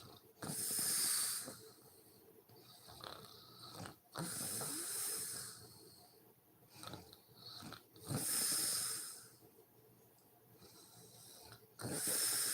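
A sleeping woman snoring: four loud, rasping breaths come about every four seconds, each lasting about a second, with quieter breathing in between.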